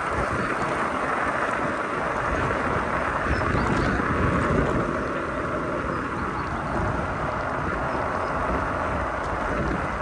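Wind buffeting the microphone over the rolling noise of a Cyrusher XF800 fat-tyre e-bike riding along, a steady rush with a faint hum for a couple of seconds in the middle.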